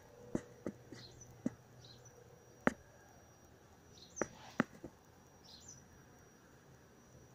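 Sharp clicks and knocks at irregular moments, the loudest about two and a half seconds in, with a few short, high bird chirps between them. No helicopter can be heard.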